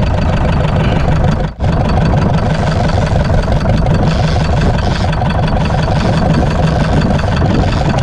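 Fishing boat's diesel engine running steadily while trolling, with one brief dip in level about a second and a half in.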